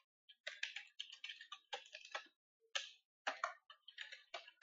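Typing on a computer keyboard: quick, irregular keystroke clicks in short runs with brief pauses.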